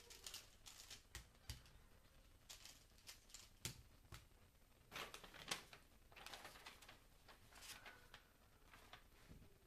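Faint, scattered clicks and rustles of a 3x3 Rubik's cube being handled and turned over in the hands. Near the end come the soft swishes of a paper cover being set down over the cube.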